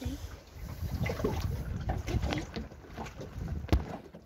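Water slapping against the hull of a small boat with a low rumble, broken by many short, irregular knocks; a sharp knock about three and a half seconds in is the loudest sound.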